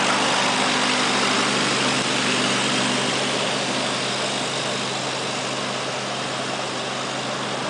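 A vehicle engine running steadily at idle, with a broad rushing noise over it; the sound eases off slowly.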